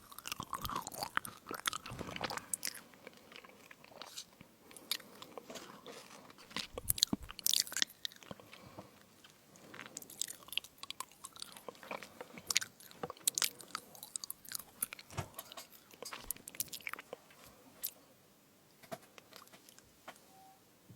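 Close-miked biting and chewing of crunchy fruit crisp: irregular clusters of sharp, crackly crunches that thin out to a few faint ones near the end.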